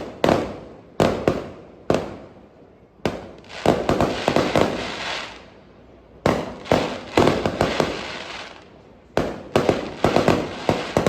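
Fireworks going off: sharp bangs in irregular bunches, each trailing off briefly, with a denser run of bangs and crackle around four to five seconds in and further clusters near seven and ten seconds.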